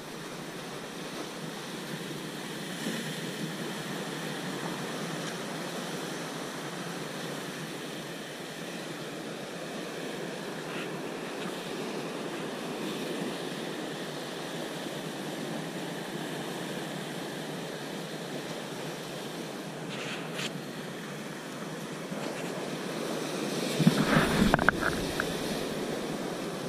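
Surf breaking and washing over rocks, a steady rushing. Near the end comes a short burst of louder knocks and rustling close to the microphone.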